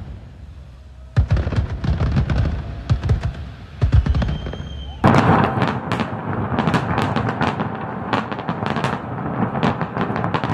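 Fireworks display: deep booms of shells bursting from about a second in, then, about halfway through, a sudden dense barrage of overlapping bangs and crackle.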